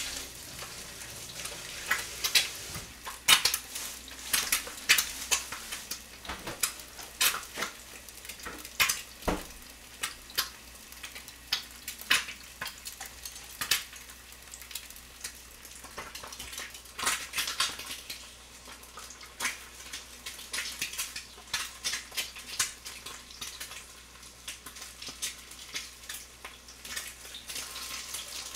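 An egg frying in oil in a small square pan, a steady sizzle with irregular sharp crackles and spitting pops.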